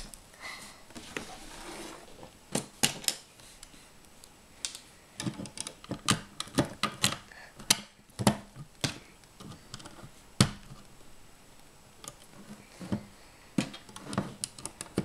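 LEGO plastic bricks clicking and clattering as pieces are picked up and pressed onto a model: irregular sharp clicks and taps, one of the loudest about ten seconds in.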